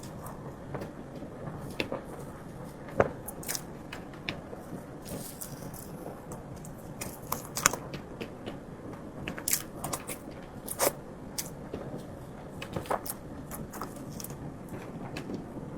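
Close-miked eating sounds of soft matcha mille crepe cake: irregular wet mouth clicks and smacks of chewing, with now and then a sharper click.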